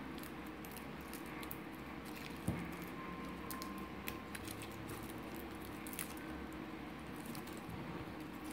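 Fingers peeling the papery skin off smashed garlic cloves: faint crinkling and scattered small clicks, with one knock about two and a half seconds in.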